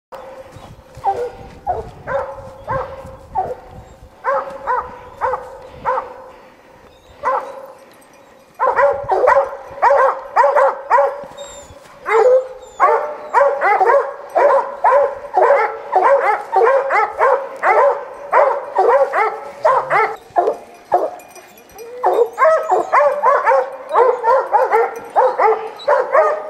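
Several hunting hounds barking treed at a mountain lion up a pine tree. It is a long run of quick, repeated barks, sparse at first and becoming loud and nearly continuous after about eight seconds.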